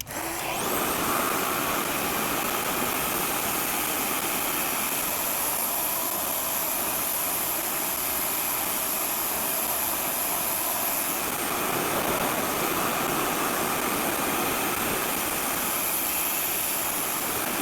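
RevAir reverse hair dryer switched on: its suction motor comes up to speed within the first second, then runs steadily with a high whine over a loud rush of air.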